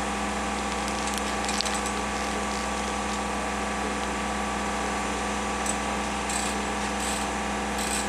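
Engine of a catenary maintenance machine running steadily at idle, with a few light clicks in the second half.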